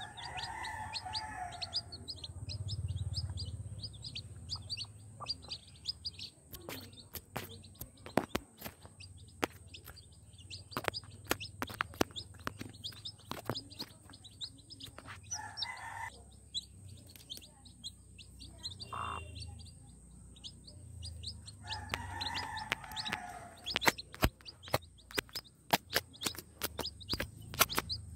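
Young chicks peeping constantly in short, high cheeps, with sharp ticks of beaks pecking at grain on the ground that grow louder and more frequent near the end.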